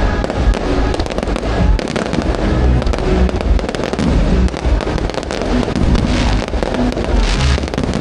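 Aerial fireworks display going off in a dense, continuous barrage: deep booms one on top of another, with many sharp cracks and crackling, and music playing underneath.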